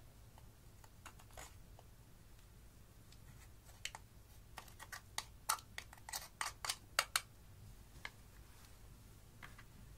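Thin metal tool tapping and crushing a pressed eyeshadow in its plastic compact: a quick run of about a dozen sharp clicks in the middle, with a few scattered taps before and after.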